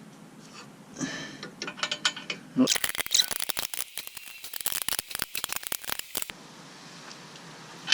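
Ratchet wrench clicking rapidly while tightening the nuts on an exhaust flange joint, in one dense run of about three and a half seconds after a few lighter clicks.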